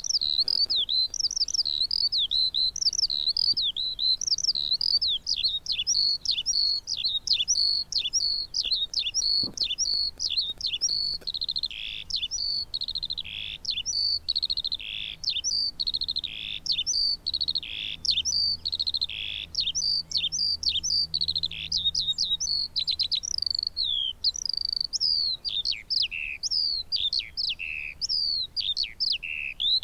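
Eurasian skylark singing: a continuous, unbroken stream of rapid, high-pitched warbling and trilling notes.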